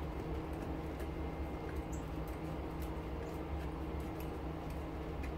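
Gloved hands peeling adhesive tape off an aluminum pot light housing: faint, scattered crackles and ticks over a steady low hum.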